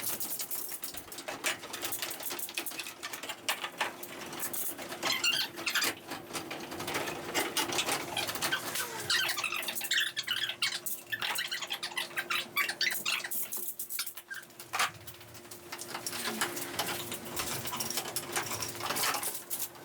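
Irregular clicks and taps, with birds chirping and a steady low hum underneath.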